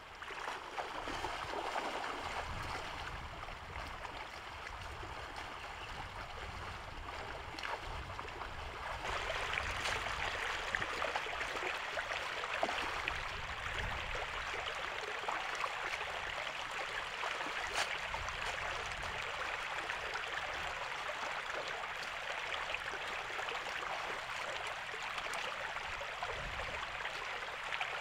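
Shallow floodwater running across a dirt road and through a bamboo fence trap: a steady rushing and gurgling flow, louder from about nine seconds in.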